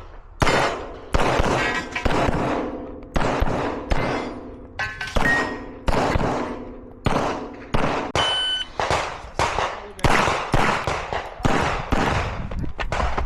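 A string of 9mm shots from a CZ Shadow 2 pistol fired in quick succession, roughly one to two a second, each with an echoing tail. A brief metallic ring follows a few of the shots.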